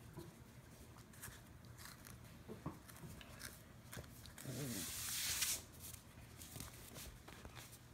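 A Scottish terrier puppy playing with a tennis ball on a tile floor: faint scattered clicks and scuffs of paws and mouth on the ball and floor. About halfway through comes a louder scraping rush lasting about a second, with a short wavering sound in it.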